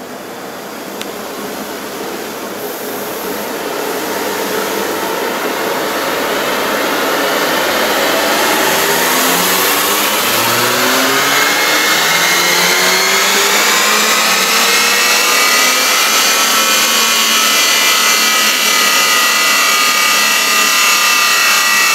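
Turbocharged four-cylinder engine of a VW Golf Mk6 GTI, fitted with an Arma Stage 2 variable-valve air intake, revving under load on a chassis dyno in one long pull. The engine note climbs steadily in pitch and grows louder throughout.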